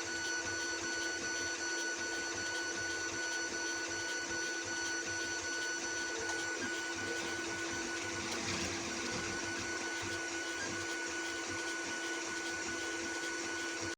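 A small machine running steadily, with a constant whine over a fan-like hiss that holds the same pitch throughout.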